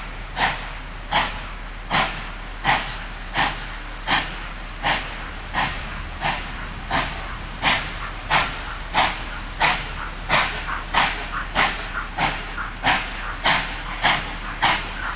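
Exhaust beats of Baldwin-built NSW 59 class steam locomotive 5910 working a train: sharp, even chuffs from the chimney that quicken from about one and a half to nearly two a second as it gathers speed.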